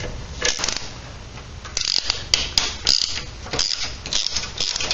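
Adjustable wrench working the steel mounting nuts and bolts of a mini-bike engine loose: a run of irregular metallic clicks and scrapes, in clusters from about two seconds in, as the wrench is turned and reset on the nut.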